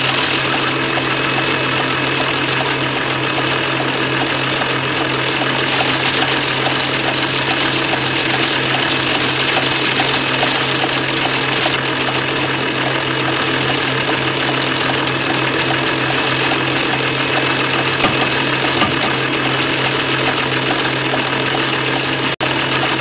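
Industrial machine drone from a film soundtrack: a steady, dense mechanical hiss and rumble over a constant low hum, with a brief dropout near the end.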